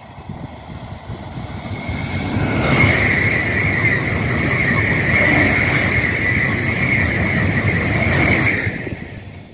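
An AVE high-speed electric train passing at speed: a rushing rumble that builds over the first couple of seconds, holds loud with a steady high-pitched whine over it, then dies away in the last second as the train clears.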